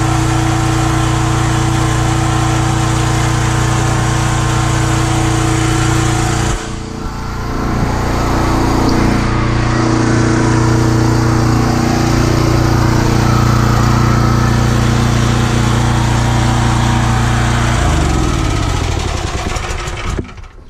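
Gas engine of a Predator 4400 PSI pressure washer running steadily, with the bypass water from the external unloader splashing into the buffer tank. The sound thins suddenly about six and a half seconds in, and near the end the engine is shut off, its pitch falling as it runs down.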